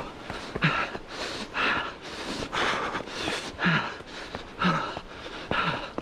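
A runner breathing hard and fast while climbing steep steps. He takes about two loud breaths a second, and several of the out-breaths end in a short low grunt.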